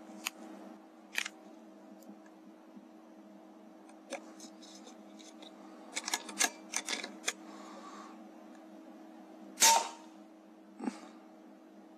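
One loud, sudden shot from an FAC-rated AGT Uragan 2 PCP air rifle about ten seconds in, preceded by scattered light clicks, with a faint steady hum underneath.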